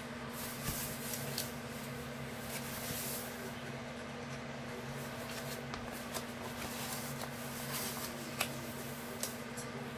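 Faint rustling and light clicks as a folded diamond painting canvas and its packaging are handled, over a steady low hum.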